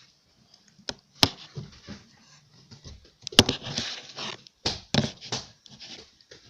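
A few sharp clicks and knocks with short rustling in between, the sound of the camera being handled and set up.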